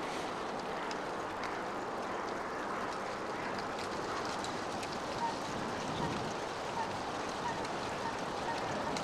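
Yellow-legged gulls giving short harsh calls as they squabble over a fish, several calls in the second half, over a steady rushing background noise.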